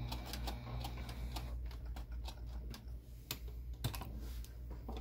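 Irregular light clicks and taps at a Juki sewing machine as hands work at the needle and presser foot, over a low steady hum.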